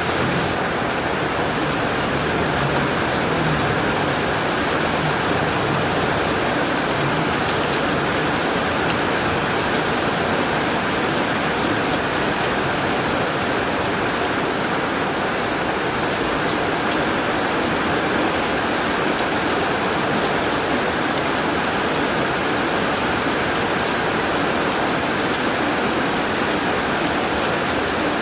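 Rain falling steadily on a tin roof: a dense, even patter with scattered sharper drop hits.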